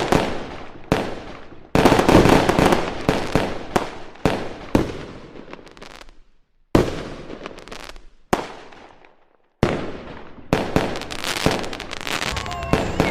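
Fireworks going off: a rapid run of sharp bangs, each fading away in a rumbling crackle. Two brief lulls come midway, and the loudest bangs are near the start.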